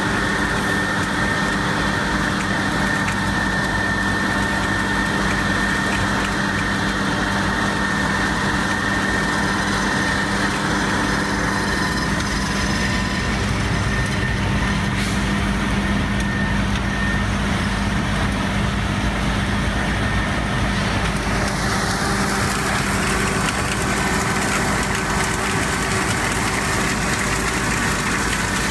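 Vacuum truck running steadily, its engine and vacuum system drawing air through a suction hose lowered into a storm drain inlet: a constant drone with a steady whine on top.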